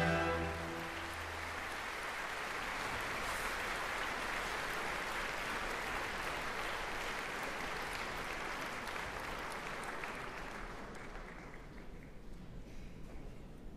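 An orchestra's final held chord dies away in the first second or two, and a theatre audience applauds. The applause fades out near the end.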